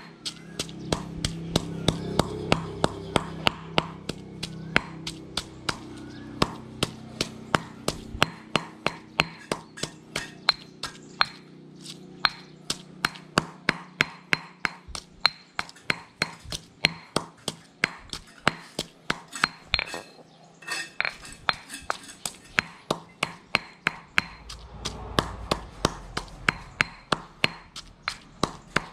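Stone pestle pounding chopped garlic and turmeric in a granite mortar, a steady beat of sharp stone-on-stone knocks at about three strikes a second.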